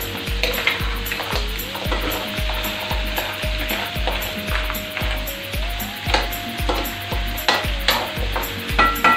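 Scallops in their shells sizzling in a metal wok as a metal ladle stirs them, with scrapes and clinks of shell and metal on the pan. A steady low beat, about twice a second, and a held tone that steps up and down run underneath.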